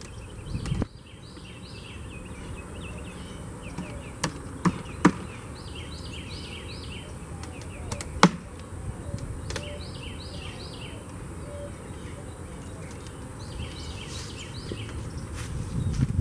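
A songbird singing in repeated short chirping phrases over bees buzzing at an opened hive. Sharp knocks and clicks come from the wooden hive boxes and tools being handled, a cluster about four to five seconds in and the loudest about eight seconds in.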